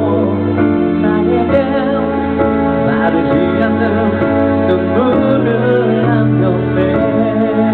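Live pop song: a singer's voice through the PA over held chords from the band, the chords changing every second or two.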